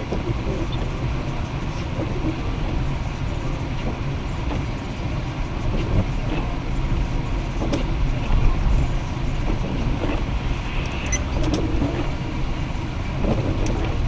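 Steady low rumble of a car's tyres and engine heard inside the cabin while driving, with a couple of light clicks in the second half.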